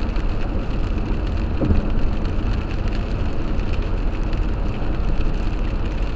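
Steady road noise heard from inside a car at highway speed: tyres on wet pavement over the low drone of the car.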